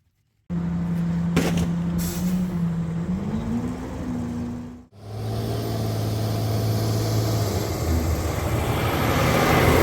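A motor vehicle running, heard in two separate stretches: a steady hum that rises in pitch about three seconds in, then, after a sudden break, another steady hum with a faint high whine.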